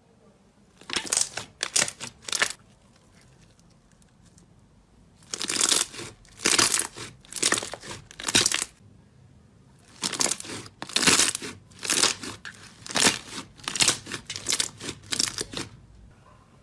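Slime being squeezed and pressed by hand, giving crackling, crinkly noises in three runs of quick bursts with short pauses between.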